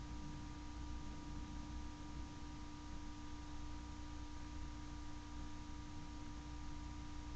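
Steady electrical hum with a faint even hiss, unchanging throughout: a recording's noise floor, with no music or other sound events.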